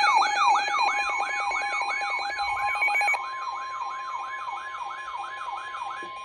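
Electronic alert siren sweeping up and down in pitch about three times a second over steady alert tones. One of the steady tones drops out about three seconds in, and the whole sound fades slowly.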